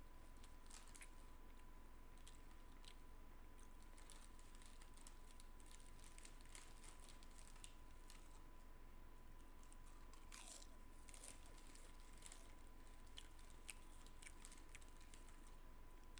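Near silence: room tone with a faint steady high-pitched hum and scattered faint clicks and crackles, plus a brief falling squeak about ten seconds in.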